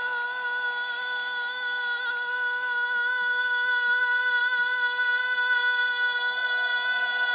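A singer holds one long high note, steady in pitch after sliding down into it, with no band playing under it.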